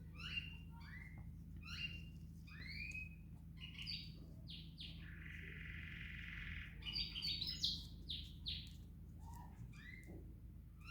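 A small songbird singing in a run of short, sweeping chirps, with a buzzy trill about halfway through. A steady low hum sits underneath.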